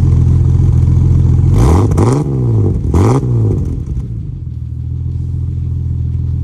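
Ford XR6 ute's straight-six engine idling, blipped twice in quick succession, each rev rising and falling back, then settling to idle again.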